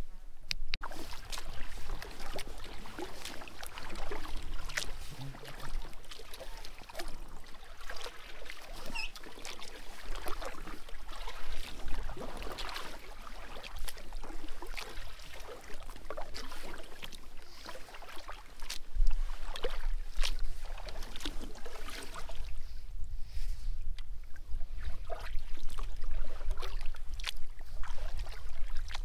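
Water splashing and trickling around a kayak, with irregular small splashes and knocks. A steady low rumble grows louder about two-thirds of the way in.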